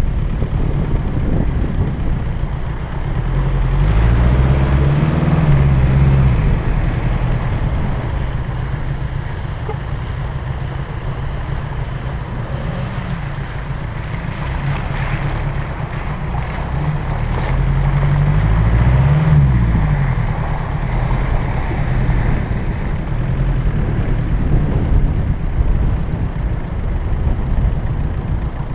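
Land Rover Discovery 1's engine working at low speed off-road, the revs rising and falling twice, with wind buffeting the microphone on the bonnet.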